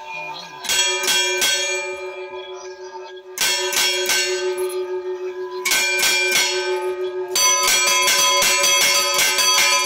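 Church bells rung by hand with chains pulled on their clappers: quick clusters of strokes about a second in, at about three and a half seconds and near six seconds, each left ringing on, then from about seven and a half seconds a continuous rapid peal.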